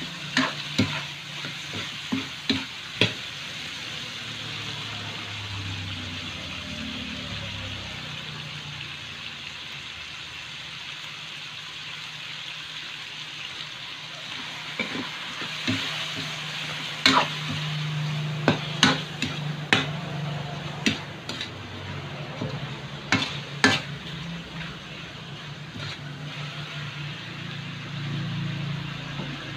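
Chicken pieces sizzling as they fry in a metal wok, with the sharp clacks and scrapes of a metal spatula stirring against the pan in bursts, a few in the first seconds and more in the middle. A low steady hum runs underneath.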